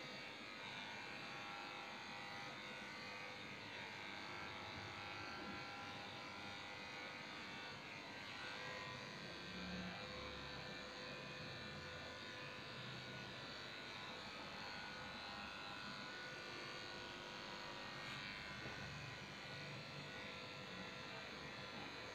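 Electric dog-grooming clippers running with a steady buzz as they shave down a Shih Tzu's coat.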